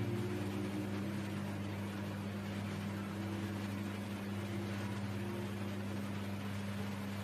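Steady low electrical hum over a constant hiss.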